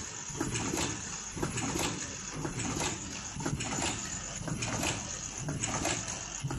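Automatic flat mask machine with crossed ear-loop welding running: a steady mechanical clatter of clicks and knocks, about two to three a second, over a continuous machine noise.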